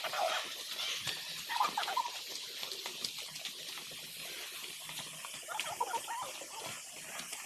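Steady rush of a waterfall, with a few brief, faint wavering calls over it near the start, about a second and a half in, and again about two-thirds of the way through.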